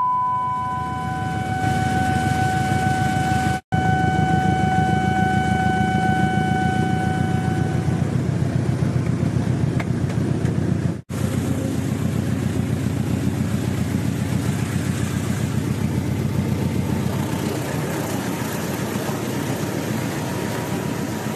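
Diesel train running along the track, a steady engine rumble mixed with rail noise, with a steady high tone held for about the first eight seconds. The sound cuts out briefly twice.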